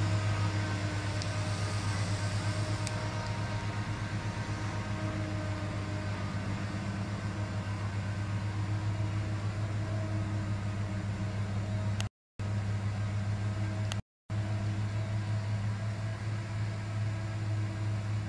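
Heavy log truck's diesel engine running steadily at low revs, a constant low hum. The sound drops out briefly twice about two-thirds of the way through.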